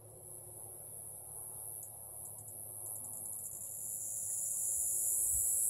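A steady, very high-pitched insect chorus, growing louder in the second half.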